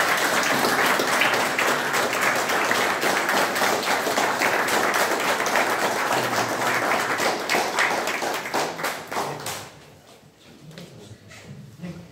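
Small audience applauding, a dense clatter of hand claps that dies away about ten seconds in.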